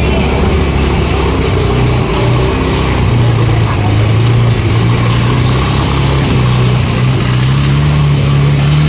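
Engine of a water-hyacinth chopping boat running steadily, its pitch edging up a little near the end.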